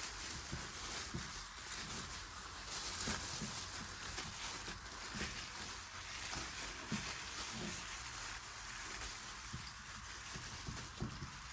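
Turkey drumstick steak sizzling on a grill over hot charcoal: a steady hiss with irregular crackles and pops.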